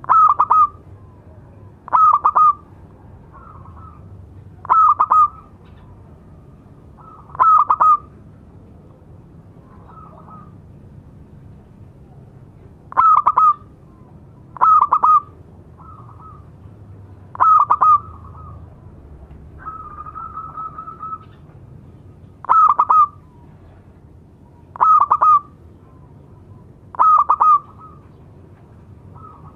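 Zebra dove (perkutut) cooing: short bursts of quick staccato notes repeated every two to three seconds, about ten loud calls with a few softer ones between, and one longer, softer drawn-out call about twenty seconds in.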